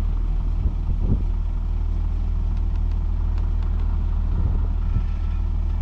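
Heavy diesel engine idling with a steady low drone.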